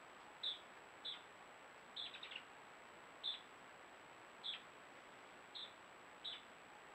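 A series of short, high-pitched chirps, about one a second, with a quick run of several together about two seconds in. A faint steady high tone sits underneath.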